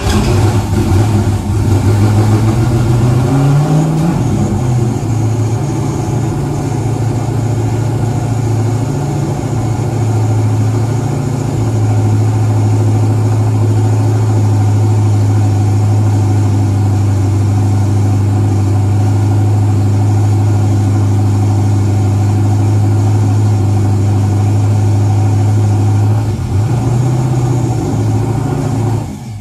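Turbocharged GM LS V8 starting and catching, rising in revs about three to four seconds in, then running at a steady fast idle of around 1,600–1,700 rpm with the turbo charge pipe off the throttle body. Near the end the idle wavers briefly and the engine cuts off.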